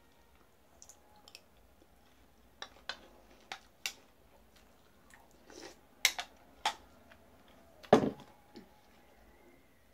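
Spoon clicking against a cereal bowl while crunchy cereal (Lucky Charms) is eaten: a scattered series of sharp clicks, a few at a time. About eight seconds in comes a loud thump as an arm brushes right past the microphone.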